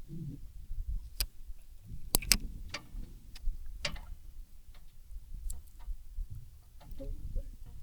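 A handful of sharp, irregularly spaced clicks and knocks, the loudest pair a little past two seconds in, over a steady low rumble: fishing tackle and gear being handled on a boat.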